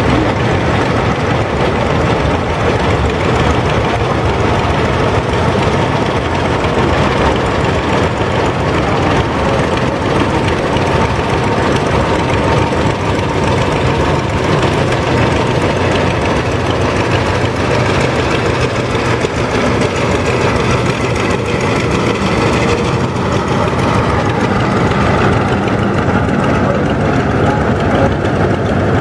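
Several vintage farm tractor engines running at low speed as the tractors drive slowly past one after another. A green two-cylinder John Deere passes close through the middle, then an orange Allis-Chalmers approaches. The sound is steady and continuous throughout.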